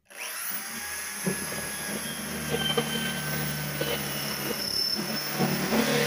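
Corded electric drill running steadily under load, boring a hole through the sheet-metal top of an electrical control panel for a cable gland.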